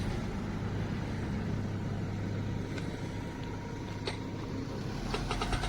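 A vehicle engine idling with a steady low hum, with a few faint clicks about three and four seconds in and a quick run of ticks near the end.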